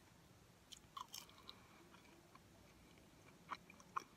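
Faint chewing, with a few scattered soft mouth clicks, from a person eating food.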